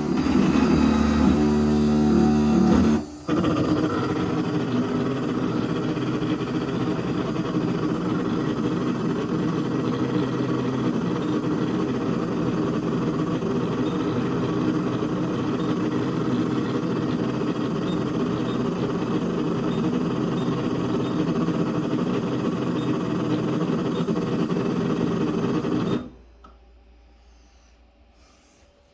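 3D printer stepper motors running during a homing move, driving the Z-axis lead screws: a steady whine of several tones. It drops out briefly about three seconds in, then cuts off sharply near the end. The printer's Z axis is not registering its endstop as home.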